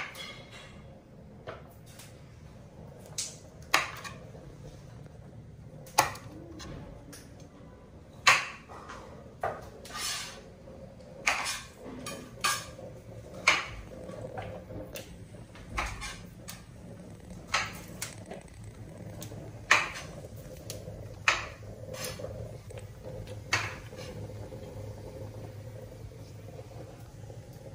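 Kitchen food-prep clatter: sharp knocks and clinks of a knife, bowls and utensils against a cutting board and countertop, irregular, about one every second or two, over a steady low hum. The knocks stop a few seconds before the end.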